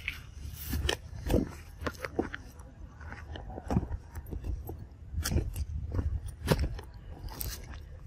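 Irregular crunches and crackles of footsteps on dry leaf litter and twigs, several strong ones spread about a second apart, over a steady low rumble.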